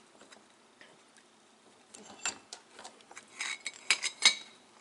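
A bench vise being wound shut on an aluminium angle bracket: sharp metal clicks and clinks begin about two seconds in and come thickest and loudest near the end.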